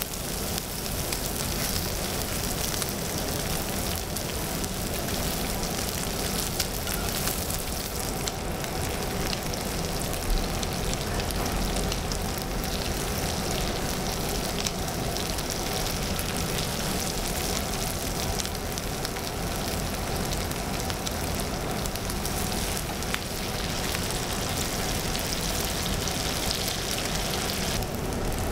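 Pork belly and aged kimchi sizzling on a hot griddle plate: a steady frying crackle of rendering fat, with an occasional light click.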